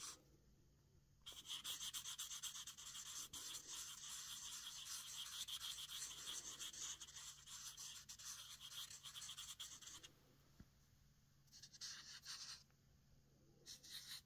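Large felt-tip marker scribbling fast back and forth on paper, a dense scratchy rubbing for about eight seconds, then two shorter bursts of strokes near the end.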